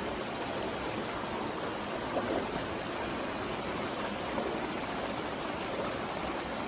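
Water of a small stream running steadily, an even rushing hiss.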